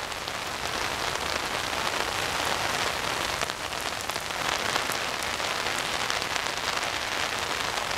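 Heavy rain falling steadily: an even hiss with many small drop ticks mixed in.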